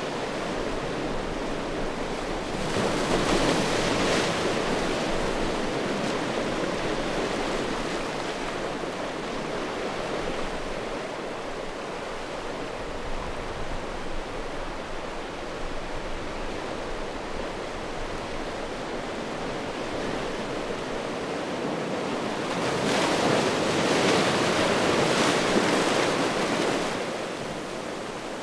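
Small sea waves washing in on a stony beach: a steady rush of surf that swells louder about three seconds in and again near the end.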